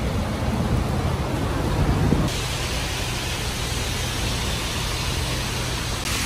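Strong wind rumbling on the microphone. About two seconds in, it gives way to a steady hiss of rain and traffic on a wet road.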